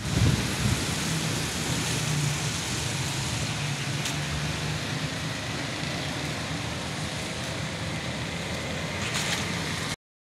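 Motorcycle engine running as it rides toward the listener on a wet street, heard as a low wavering hum over a steady hiss. All of it cuts off suddenly near the end.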